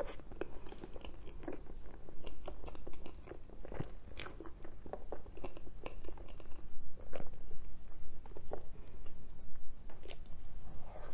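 Close-miked eating of soft matcha mille crêpe cake from a spoon: wet chewing with many short, irregular lip smacks and mouth clicks.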